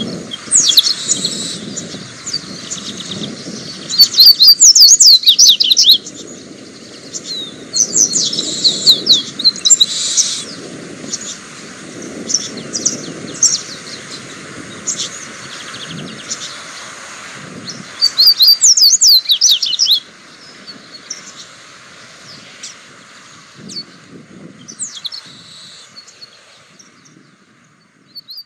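Papa-capim (double-collared seedeater) singing: several loud phrases of rapid, high twittering notes, each a couple of seconds long, with softer single chirps between them. The last phrase ends about two-thirds of the way through, and only a few quiet notes follow.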